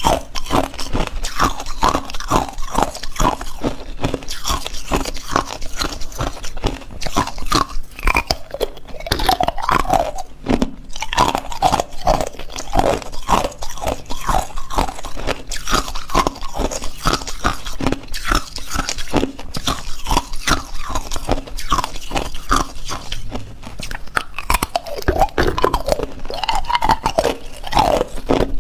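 Hard, clear ice cubes being bitten and chewed: a continuous, rapid run of sharp crunches.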